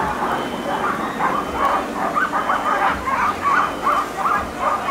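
A team of sled dogs barking and yipping in a steady chorus of short, quick barks, a few a second, eager to run as they wait at the start line.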